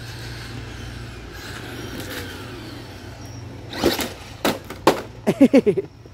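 Traxxas Maxx RC monster truck running on pavement, then crashing into a curb about four seconds in with a few sharp knocks as it tumbles. A quick run of short whines that rise and fall follows.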